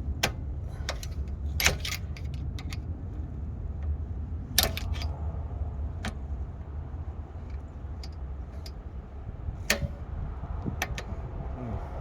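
Scattered metallic clinks and clicks as the parking brake cable and its fittings are worked onto a 2016 Kia Soul's rear brake caliper. The loudest knocks come about two seconds and about five seconds in, over a steady low rumble.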